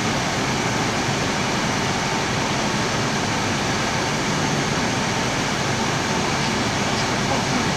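Steady rushing hiss of the Airbus A320 flight deck on final approach: air rushing past the cockpit together with the ventilation system.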